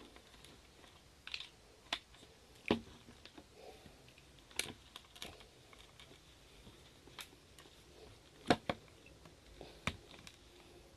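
Scattered light clicks and taps from handling a smartphone in a plastic case and plugging a USB charging cable into it, with the loudest knocks near 3 s and 8.5 s in.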